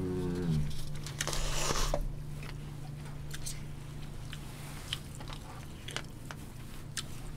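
Close-up eating sounds: chewing, with small clicks of wooden chopsticks against plastic food containers, over a low steady hum. A short voiced 'mm' opens it, and a brief noisy rustle or slurp comes about a second in.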